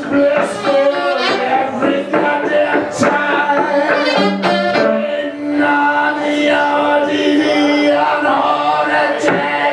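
Live saxophone and electric guitar duo: the saxophone plays a melodic line with several long held notes over electric guitar accompaniment.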